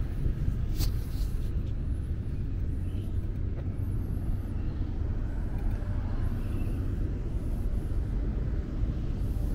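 City street ambience: a steady low rumble of road traffic, with one brief sharp click about a second in.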